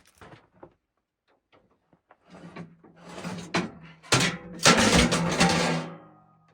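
A run of knocks and clattering, like things being handled and banged together, loudest in the second half, over a steady low hum.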